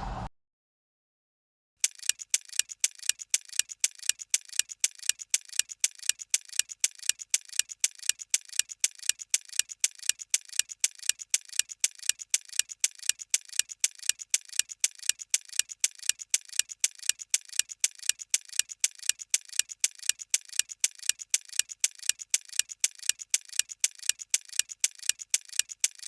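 Ticking clock sound effect counting down the answer time, starting about two seconds in after a short silence and running as a steady, rapid, even tick.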